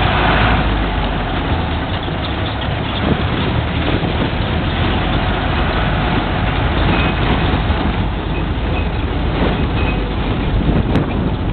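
Steady rumble of a moving pickup truck heard from its open bed: engine and tyres on a rough street, mixed with wind on the microphone.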